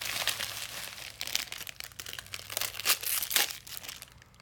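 Thin plastic toy wrapping being crinkled and torn open by hand: a dense run of sharp crackles that thins out and gets quieter toward the end.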